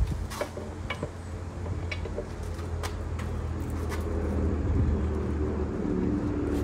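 A motor vehicle engine running, rising in level in the second half, over a steady low rumble. Several sharp clicks or taps come in the first few seconds.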